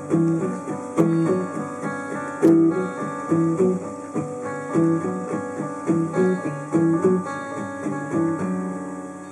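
Acoustic guitars playing the closing bars of a song in a steady rhythm, ending on a chord that is left to ring out and fade near the end.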